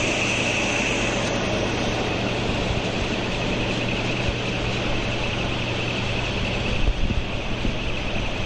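Laser cladding machine running while cladding a steel part: a steady hiss over a low, even hum, with a brief low rumble about seven seconds in.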